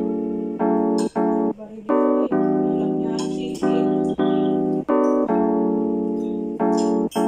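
Background music: a keyboard tune of struck notes and chords, each ringing and fading before the next.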